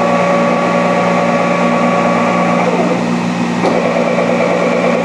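Dainichi Model H lathe's powered tailstock traverse running: a steady machine hum with several steady tones. About two and a half seconds in one tone drops out and another falls in pitch, and about a second later the sound shifts again with a faint tick, as the move stops and changes.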